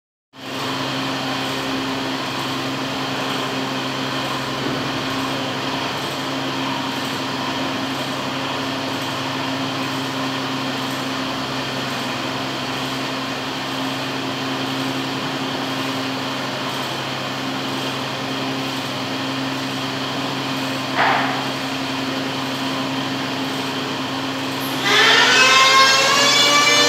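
A steady machine hum with a few fixed tones under an even hiss, with a short rising squeak about 21 s in. Near the end, a louder siren-like wail begins, its several tones rising slowly as it winds up.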